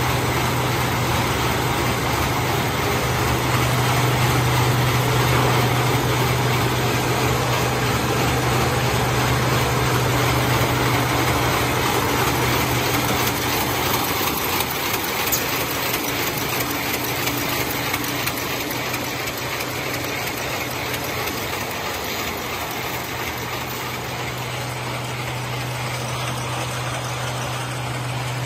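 Servo-driven B220 high-speed SOS (square-bottom) paper bag making machine running: a dense, even mechanical clatter over a constant low hum. The hum fades in the middle and comes back near the end.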